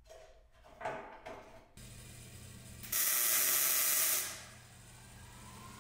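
A welding arc burning for about a second, a loud steady hiss that starts and stops abruptly as a short weld is laid on the stainless steel stove. Before it come a few light clicks and knocks of handling the metal parts.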